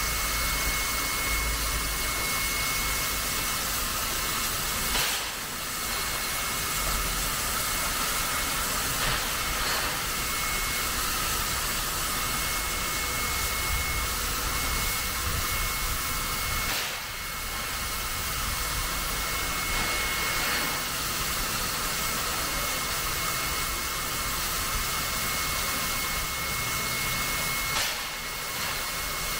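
Steam locomotive 5917 standing with steam up, giving a steady hiss of escaping steam that eases briefly about three times.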